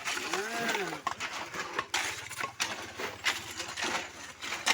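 Hand tools scraping and knocking on the road surface in repeated short strokes, with a brief rising-and-falling call near the start.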